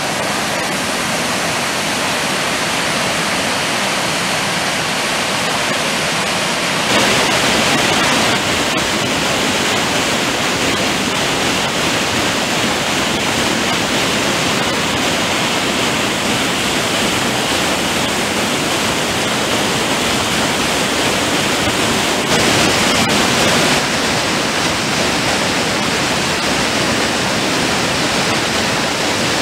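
Rushing floodwater, a steady, loud rush with no pauses. About seven seconds in it changes to a fuller, louder rush of a mountain stream in spate tumbling over rocks, briefly louder again about 22 seconds in.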